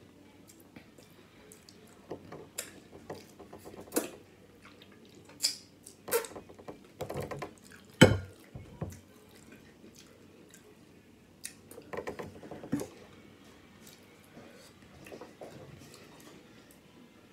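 Close-miked eating and drinking noises: scattered wet mouth clicks and smacks, and a large plastic water bottle being handled, with one loud thump about eight seconds in.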